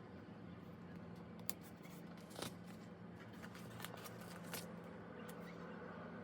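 Paper being handled for journaling: soft rustling with a few sharp light clicks and taps, over a faint steady low hum.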